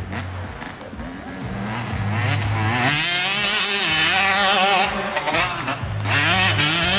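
Dirt bike engine revving hard under throttle, its pitch climbing and wavering as the bike pulls up a steep bank. The revs drop back about five seconds in and build again near the end.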